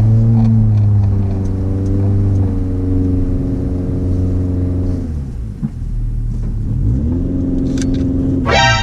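Subaru engine running under load in sand, its pitch dropping about five seconds in, then climbing again and revving hard near the end as the car digs into deep sand.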